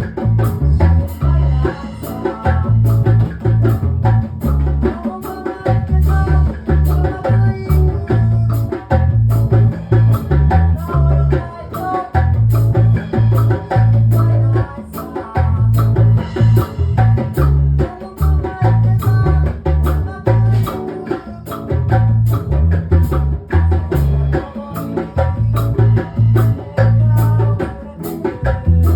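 Live band playing a reggae song with singing over a heavy, rhythmic bass line, drum kit and steady cymbal ticks.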